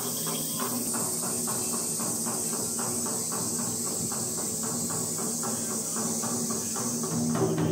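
Steady high-pitched drone of insects singing in summer greenery, with a faint rapid pulsing beneath it. Low tones begin to swell in near the end.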